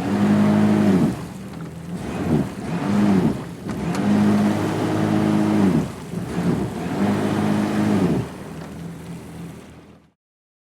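Yamaha WaveRunner engine revving in the water: about four blips of the throttle, each a rise and fall in pitch, between lower idle stretches. The engine sound fades and cuts off about ten seconds in.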